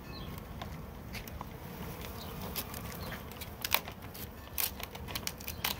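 A package of about 10,000 honeybees humming steadily in its wooden, screened shipping box. From about two and a half seconds in, a run of sharp clicks and scrapes comes from the box's wooden lid as it is worked loose.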